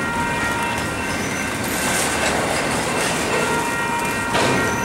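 Double-stack container train rolling past on steel wheels: a steady rumble and rattle of the well cars, with thin high ringing tones from the wheels, and a sharp louder knock near the end.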